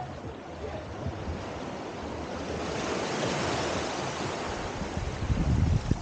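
Small waves washing up and drawing back over sand at the water's edge, one wash swelling and fading about halfway through. Near the end, wind buffets the microphone with a low rumble.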